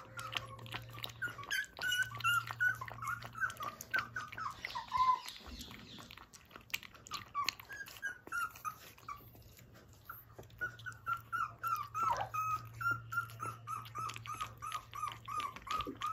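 Puppy whimpering in runs of short, high cries, about three or four a second, with a brief pause past the middle and one longer falling cry a little later. Through it come small wet clicks of a puppy lapping milk from a steel bowl.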